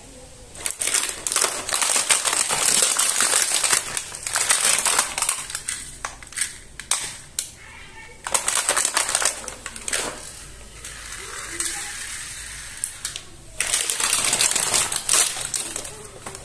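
Clear plastic blister packaging crinkling and crackling as small toy vehicles are pried out of it by hand, in several bursts with short pauses between them.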